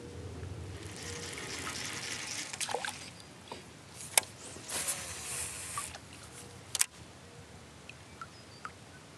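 Kayak paddle strokes: water splashing and dripping off the paddle blade, with a few sharp clicks or knocks, the loudest about four and seven seconds in.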